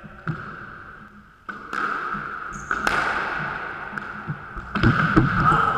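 Squash being played: sharp knocks of the ball off rackets and walls and thuds of footsteps on the wooden court floor, the loudest strike about three seconds in and a cluster of thuds near the end.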